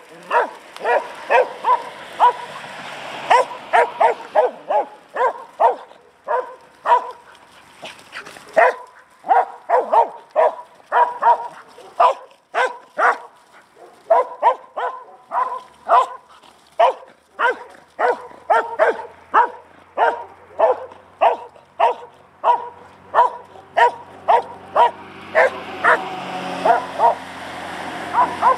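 A dog barking over and over at a flock of sheep it is rounding up, sharp barks coming about two a second with only brief gaps.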